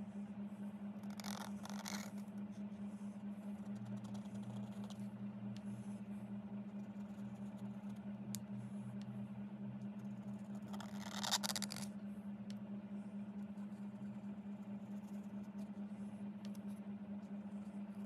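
Broad-nib calligraphy pen scraping across paper in a few short strokes, the loudest about eleven seconds in, over a steady low hum.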